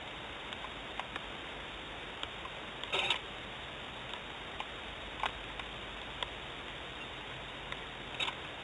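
Steady hiss with scattered, irregular ticks and clicks, and a short louder crackle about three seconds in and again near the end: light rain dripping on an outdoor nest camera's housing.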